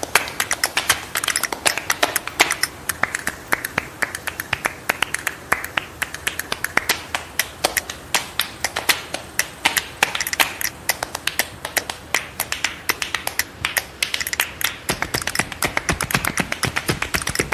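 Rapid, irregular clicking and tapping, many sharp clicks a second without a steady beat.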